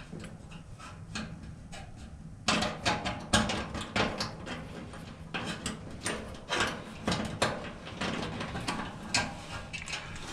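Irregular knocking and clattering of tools and metal parts being handled, sparse at first and busier and louder from about two and a half seconds in.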